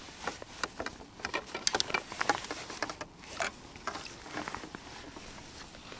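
A small bream flapping in a landing net at the water's surface: a quick patter of little splashes and drips, busiest in the first three seconds or so and then thinning out.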